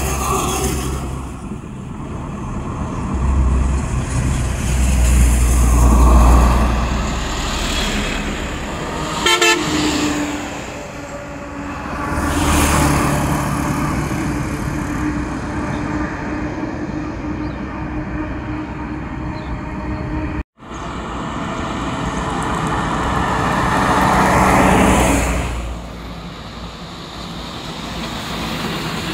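Heavy cargo trucks and motorcycles driving past on a highway, their engine noise swelling and fading as each vehicle passes close. A vehicle horn gives a short burst of toots about nine seconds in.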